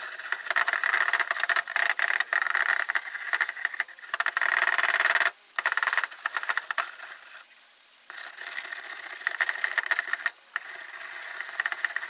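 36-grit sandpaper scrubbing across smooth porcelain, roughing up the surface so that silicone will bond to it. The scratchy rubbing runs in continuous strokes with a few short pauses.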